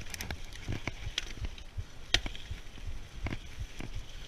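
Mountain bike rolling fast down a wet, stony gravel trail: a low rumble of tyres on the ground with frequent sharp clicks and knocks from stones and the jolting bike, the loudest knock about two seconds in.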